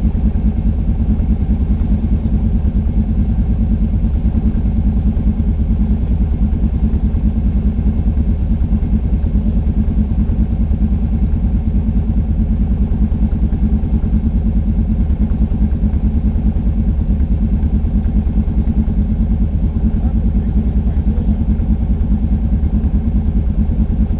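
ATV (quad) engine idling steadily, a loud, even, low pulsing run with no revving.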